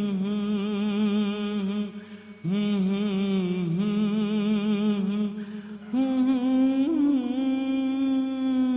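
A man's voice singing long wordless held notes with vibrato, unaccompanied, in three phrases with short breaths between.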